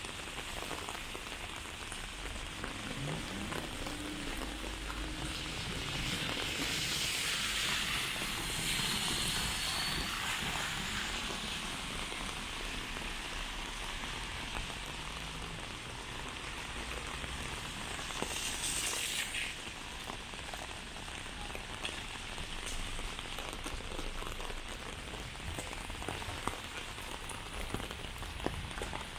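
Steady rain falling on wet pavement, a continuous hiss. It swells louder for a few seconds about six seconds in, and a brief sharper hiss comes a little later.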